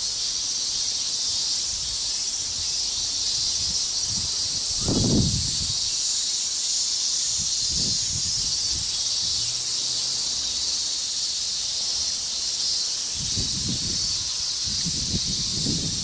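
Steady high-pitched insect chorus. A few soft scuffs and rustles come through it, thickest in the last few seconds, from someone working the soil by hand.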